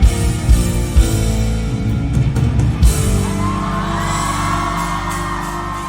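Live rock band playing through a hall PA: heavy drum hits for about three seconds, then the band stops on a sustained chord under a long held note as the song ends.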